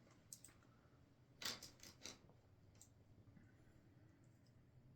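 Small plastic Lego pieces being handled and clicked together: a few faint clicks, then a quick cluster of clicks about a second and a half in, and one more click a little later.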